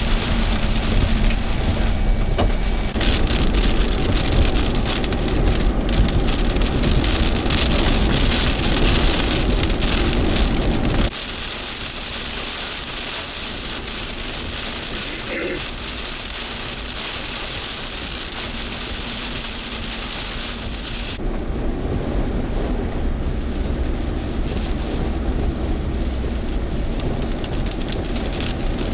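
Heavy rain hitting a vehicle's windshield and roof, heard from inside the cabin, with a low rumble underneath. The sound drops abruptly to a lighter patter about eleven seconds in, then grows heavier again after about twenty-one seconds.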